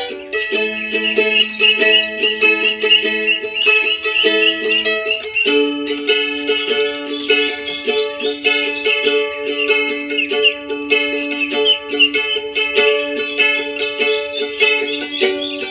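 A mandolin playing a tune, its plucked notes changing steadily in a melody.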